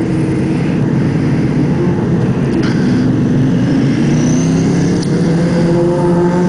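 Motorcycle engines running with a steady rush of wind and road noise on a helmet camera. The engine pitch climbs slowly over the last few seconds as the bikes accelerate.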